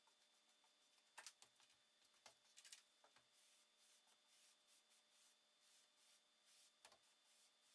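Near silence, with faint repeated rubbing strokes of a sponge wiping stain across a birch panel and a few light clicks.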